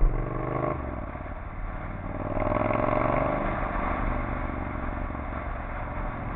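Triumph Scrambler's 865 cc air-cooled parallel-twin engine running under way. The revs climb, drop sharply just under a second in, then climb again to their loudest around three seconds in before levelling off.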